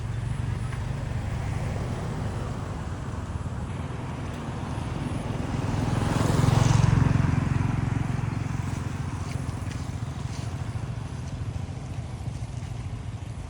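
Road traffic: a steady low engine hum, and a motor vehicle passing close, growing louder and then fading, loudest about halfway through.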